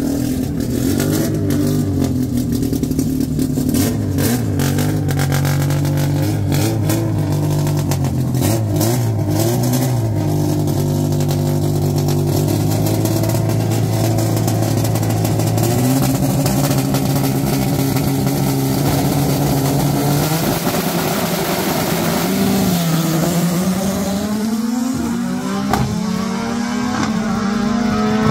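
Naturally aspirated drag-racing car engines idling and being blipped, the pitch stepping up and down, with sharp crackles during the first ten seconds. Near the end an engine's pitch climbs steadily as it revs up under acceleration.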